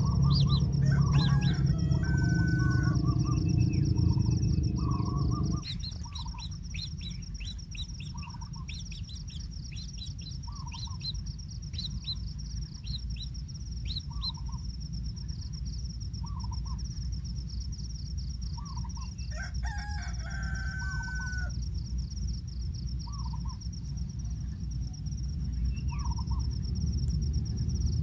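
Several wild birds calling over a steady pulsing insect trill: short repeated notes every second or two and runs of quick descending chirps. A low rumbling noise underneath drops away about five seconds in.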